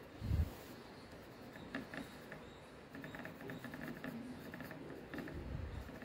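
Small paintbrush dabbing and scrubbing on a textured canvas panel: faint, short scratchy strokes, with a low thump about a third of a second in and another near the end.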